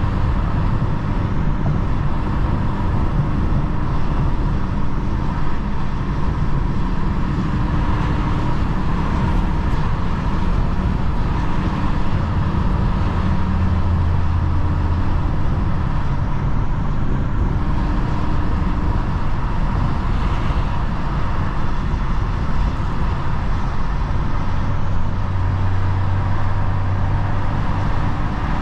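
BMW 435i's turbocharged N55 straight-six running at low, steady revs while driving in traffic, over a constant hiss of road and tyre noise. The low engine hum swells and eases a few times.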